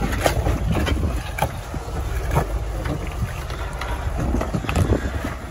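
Jeep Wrangler's engine running at low revs under load as it crawls over rocks, with the tyres crunching on rock and several short knocks along the way.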